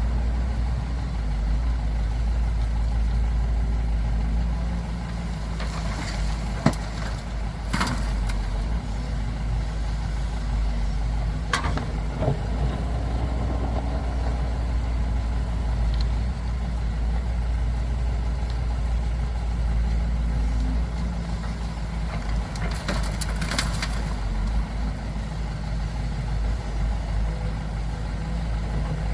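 Heavy diesel engines of excavators and dump trucks running steadily while hauling dirt, with a few sharp knocks at scattered moments.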